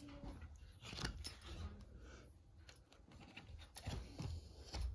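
Faint rustling and a few short taps as the stiff pages of a photo album are handled and turned by hand.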